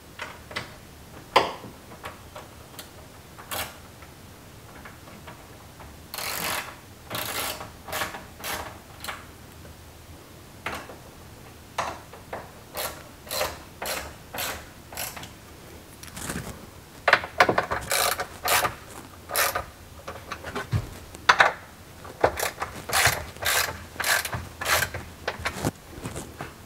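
Hand ratchet wrench clicking as fasteners are run in: runs of quick clicks separated by pauses, with the odd louder knock.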